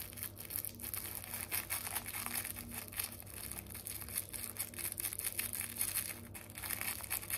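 Thin cigarette rolling paper rustling and crinkling softly as fingers roll it around loose herb into a joint, over a faint steady low hum.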